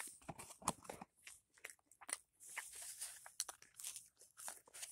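Close-up chewing of food: irregular crunches and small wet mouth clicks.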